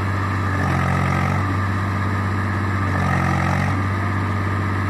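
Diesel farm tractor engine running steadily under load as it tries to pull a trailer loaded with straw that has got stuck. The low hum swells to a fuller note twice, about a second in and again near three seconds.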